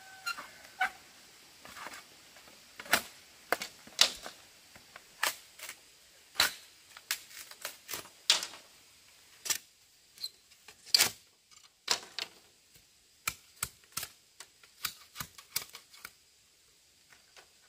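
A series of short, sharp knocks or taps, irregularly spaced at roughly one or two a second and varying in loudness.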